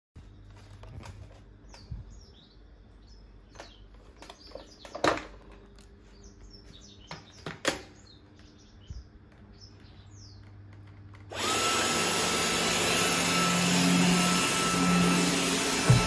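A stick vacuum cleaner is switched on about eleven seconds in and runs with a steady rushing noise and a constant whine. Before it starts there are a few sharp knocks from handling and faint chirps.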